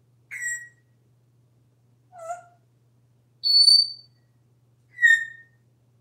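African grey parrot whistling: four short whistles about a second and a half apart, the third higher, held a little longer and the loudest.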